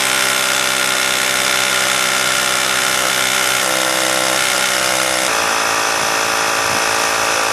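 Hart 20-volt cordless electric tire inflator running steadily as it pumps air into a car tire that was near empty, the pressure climbing toward 35 psi. Its drone changes abruptly about five seconds in.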